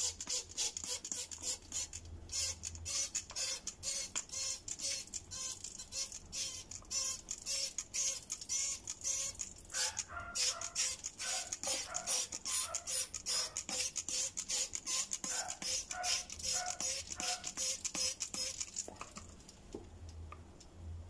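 Hand-held trigger spray bottle being squirted over and over in quick succession, a hissing spurt about two to three times a second, stopping near the end.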